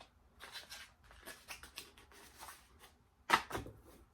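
Packaging rustling and crinkling as items are lifted out of a shoe box, in short irregular strokes, with one louder crinkle a little after three seconds in.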